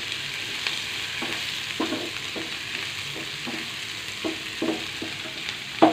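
Chopped onions sizzling in hot oil in a nonstick frying pan, stirred with a wooden spatula that scrapes across the pan about twice a second.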